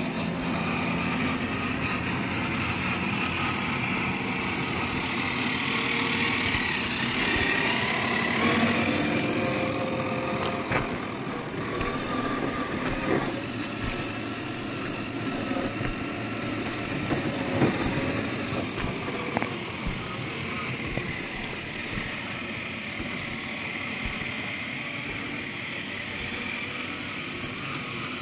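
Small electric motors and gearboxes of 1/10-scale RC crawler trucks whining as they drive over dirt, the pitch shifting with throttle, over a noisy outdoor hiss. A few sharp clicks or knocks stand out partway through.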